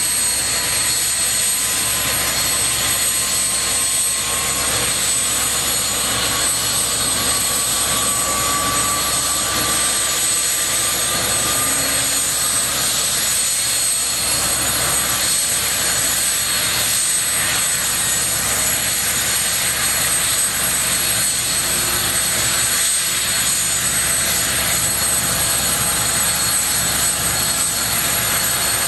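CH-47 Chinook helicopter running on the ground, its twin turboshaft engines and tandem rotors turning steadily, with a high, steady turbine whine over the rotor noise.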